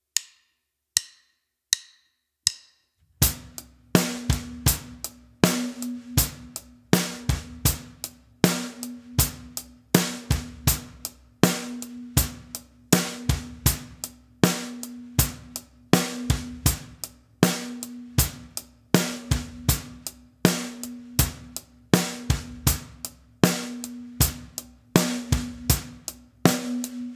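Acoustic drum kit playing a simple eighth-note rock groove at 80 BPM: closed hi-hat on every eighth note, snare on 2 and 4, and bass drum on 1, the 'and' of 2, and 3. It comes in about three seconds in, after four count-in clicks at the same tempo.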